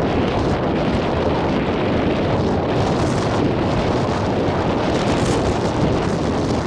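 Wind buffeting the microphone: a loud, steady rush with a low rumble, even throughout.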